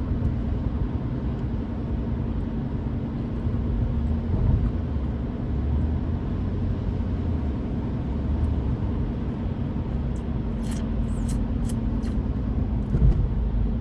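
Steady in-car road noise from a car cruising on the highway: low engine and tyre rumble with a steady drone, and a few faint clicks late on.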